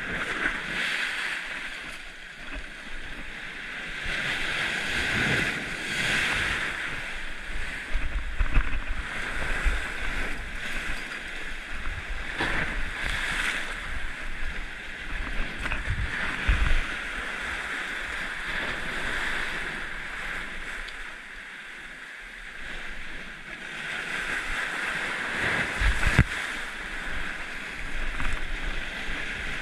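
Sea surf surging and breaking against a rocky shore, swelling and ebbing every few seconds, with a few short low thumps.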